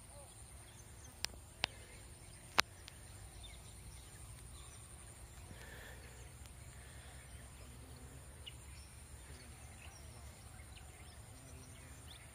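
Quiet outdoor ambience: a low rumble, a steady high hum, and three sharp clicks within the first three seconds, the last the loudest.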